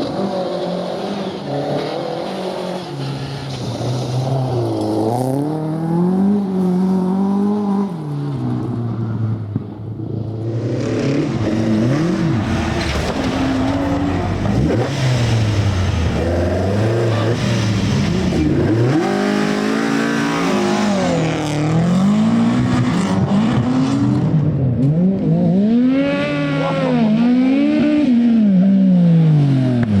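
Rally car engine on a special stage, its note rising and falling over and over as the driver works the throttle and gears. Near the end the revs go up and down quickly, about once every second and a half.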